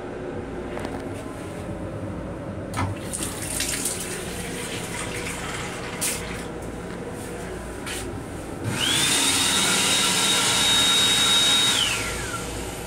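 Lavatory sink faucet in an M7 railcar running in a thin stream, with a few sharp clicks, then about nine seconds in the built-in hand dryer starts: rushing air with a motor whine that rises, holds steady and falls away as it shuts off some three seconds later. The train's low rumble runs underneath.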